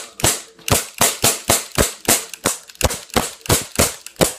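A rapid string of pistol shots, about four sharp cracks a second, fired steadily without a pause.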